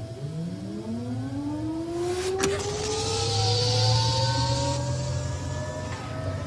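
Sci-fi machine sound effect: a motor-like whine that rises steadily in pitch over a low hum, as of a machine powering up, with a sharp click about two and a half seconds in and a hiss through the middle.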